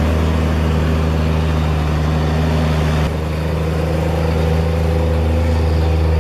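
Heavy truck engine running steadily with a low, even drone, with a sudden small shift in the sound about three seconds in.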